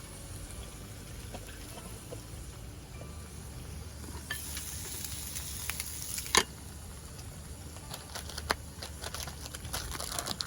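Food sizzling in a hot pan over a campfire: a burst of sizzling about four seconds in that ends after two seconds with one sharp, loud knock, followed by scattered crackles and ticks.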